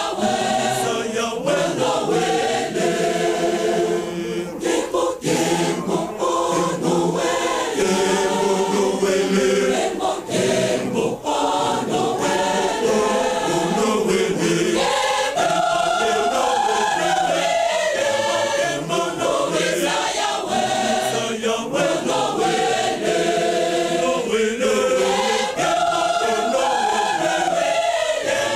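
Large choir singing a hymn in several voice parts, continuously, with the melody moving note by note.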